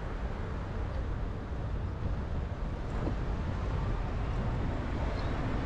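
Wind rumble on a bicycle-mounted dashcam's microphone while riding, mixed with road traffic noise; a steady low rumble that grows slightly louder near the end.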